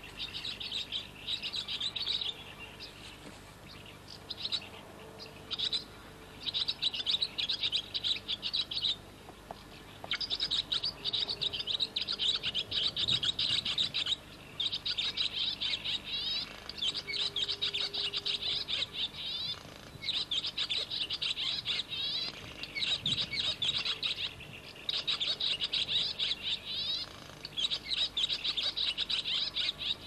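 Small songbirds singing: rapid, high twittering phrases a few seconds long, repeating one after another with short pauses.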